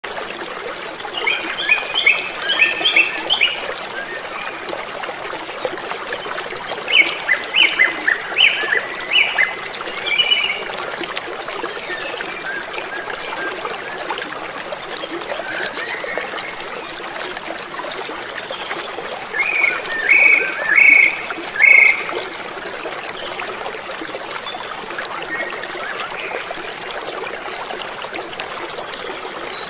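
Steady rush of a waterfall, with a bird singing three bursts of quick repeated chirps over it, near the start, around a third of the way in, and about two-thirds through.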